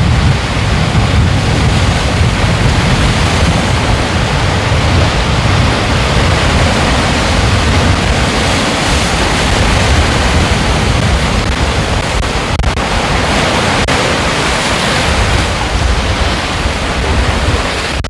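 Ocean surf washing in steadily, a continuous loud hiss of water with a deep rumble underneath.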